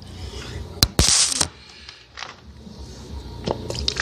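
Background music, with a sharp click just before a second in and then a short, loud hiss lasting about half a second.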